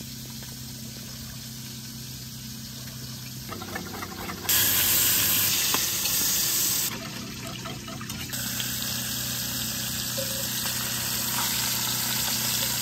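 Root beer poured over brown sugar in a steel pot, quiet under a low steady hum. About four and a half seconds in, the loud sizzling of pork chunks searing in a cast iron Dutch oven takes over, its level dropping and jumping abruptly a few times.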